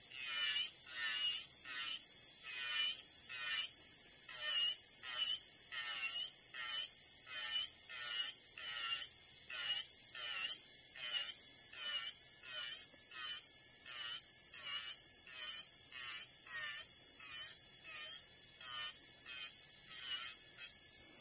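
Electric nail drill with a gel-removal bit grinding gel polish off a fingernail: a steady high motor whine with a scraping grind that swells and dips about twice a second as the bit is swept back and forth, evening out in the second half.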